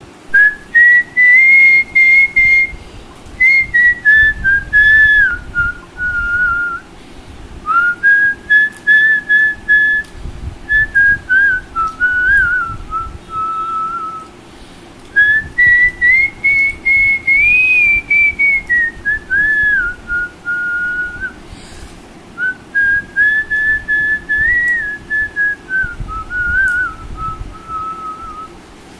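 A man whistling a Hindi film song melody by mouth: one clear high tune in four long phrases, each rising and then stepping down, with short breaks for breath between them.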